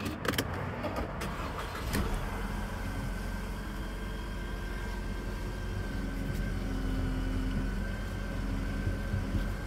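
Mercedes-Benz C-Class W204 engine starting, with a few clicks in the first two seconds before it catches about two seconds in, then idling steadily with a faint constant whine.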